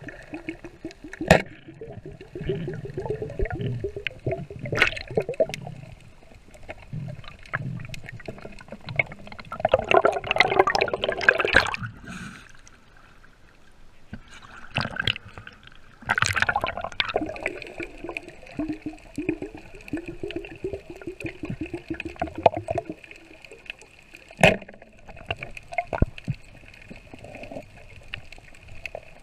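Water sloshing and rushing around a spearfisher's camera as he swims underwater and at the surface, with louder rushes about ten and sixteen seconds in and a few sharp clicks.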